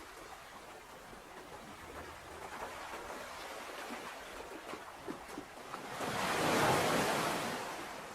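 Ocean surf: a steady wash of water with a light fizzing crackle, then one wave swelling and breaking about six seconds in before fading away.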